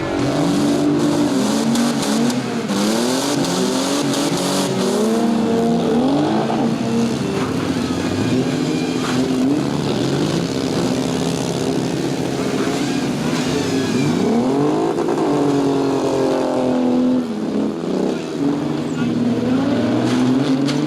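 Several demolition derby cars' engines revving up and down at once, their pitches rising and falling over one another above a steady engine hum. A few sharp knocks come in the first few seconds.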